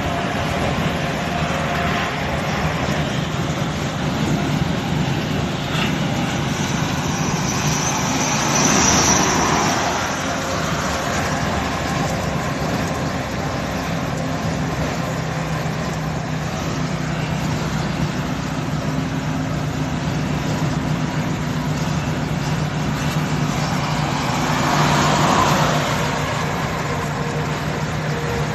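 Steady running noise inside a truck cab on a wet road: a low engine hum under tyre and road noise. A rushing noise swells up twice, about a third of the way in and again near the end.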